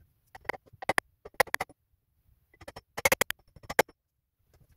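Hammer driving a nail into a wooden board: a run of sharp knocks in short clusters of quick strikes, with the densest, loudest group about three seconds in.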